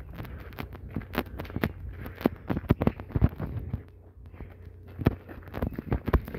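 Footsteps crunching on a dirt path and then dry leaf litter and twigs, an irregular run of sharp crunches that grows louder near the end, over a low rumble.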